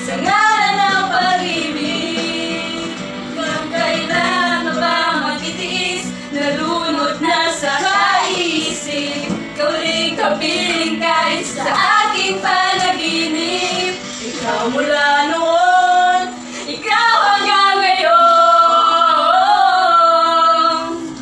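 Women singing a Tagalog love song together, loud and continuous.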